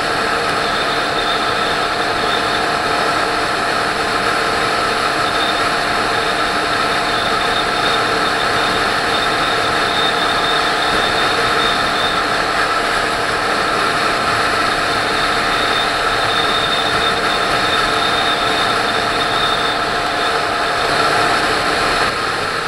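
Motorcycle engine and exhaust running at a steady cruising speed, heard from the rider's seat: an even drone that holds one pitch without revving up or down, dropping a little in level near the end.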